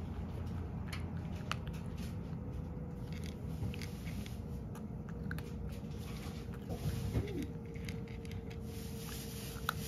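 A cat eating dry kibble from a ceramic dish: irregular crunches and small clicks as it chews, over a steady low hum.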